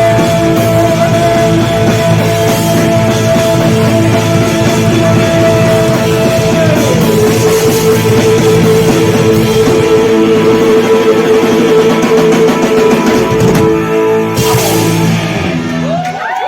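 Rock band playing live and loud, with electric guitars and drums. A long high held note slides down about seven seconds in, and the music breaks off near the end.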